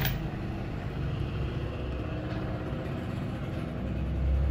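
A steady low rumble that swells near the end, with one sharp click right at the start.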